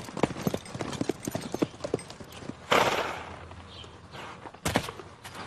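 A ridden horse's hooves clattering at a fast pace on hard ground, easing off after about two and a half seconds. A short rushing noise follows, then one sharp knock near the end.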